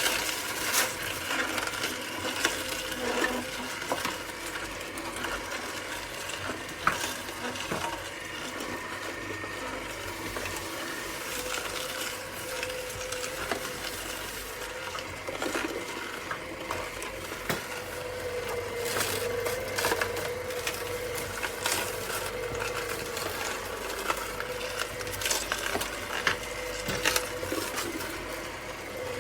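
Plastic parts of a slow cold-press juicer clicking and knocking. About a third of the way in the juicer's motor starts and keeps running with a steady low hum, while the clicks and knocks go on.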